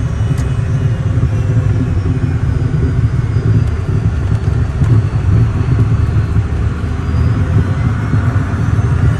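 Cessna Citation M2 twin-turbofan business jet: a steady, deep rumble of engines and airflow, with a faint high whine above it.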